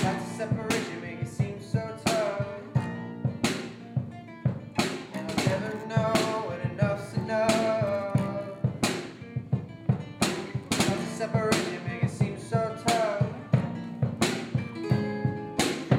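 Live band playing an instrumental passage: acoustic and electric guitars over a drum kit, with sharp drum and cymbal hits every half second or so.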